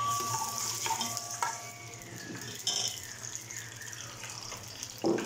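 Sliced onions sizzling in hot cooking oil in an aluminium pressure-cooker pot, with a steady hiss. A metal ladle stirs them and clinks against the pot a few times in the first three seconds, and there is a louder knock near the end.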